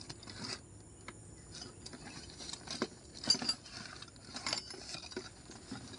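Irregular light clicks, taps and small rattles of hands working on a stopped Stihl 070 chainsaw, with the engine not running. The loudest click comes a little after halfway.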